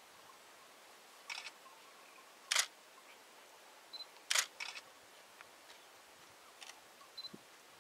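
Short, sharp clicks at a low level, some single and some in quick little clusters, every second or two, with two brief high pips between them.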